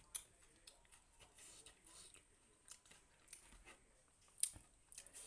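A person chewing food close to the microphone: soft, scattered mouth clicks and short chewing sounds, the sharpest click about four and a half seconds in.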